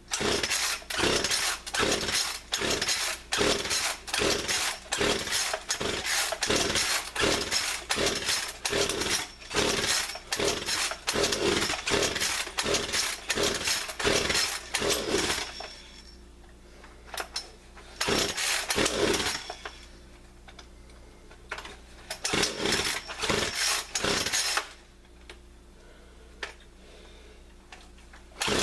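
Poulan Pro PR4218A two-stroke chainsaw being pull-started over and over: quick repeated yanks on the recoil starter crank the engine, but it does not catch and run. A pause comes about 15 seconds in, then two more short goes. The owner thinks the engine is flooded.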